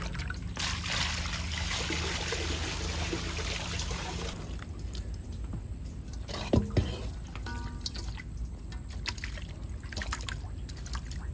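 Water splashing and sloshing as hands rub and wash cut pieces of loitta (Bombay duck) fish in a metal bowl of water. The splashing is strongest in the first few seconds, then softer, with a single knock about six and a half seconds in.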